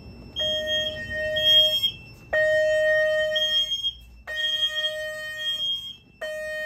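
Fire alarm system in alarm: an evacuation speaker sounds a steady alert tone in four blasts of about a second and a half each, with short breaks between them. A higher-pitched horn sounds in short, uneven blasts over it.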